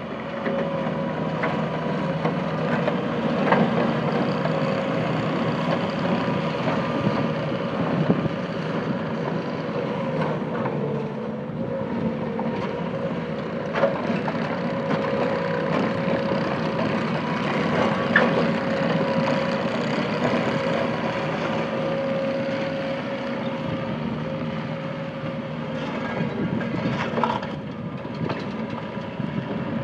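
Bobcat T250 skid steer's diesel engine running steadily with a constant whine, and a few sharp clanks now and then.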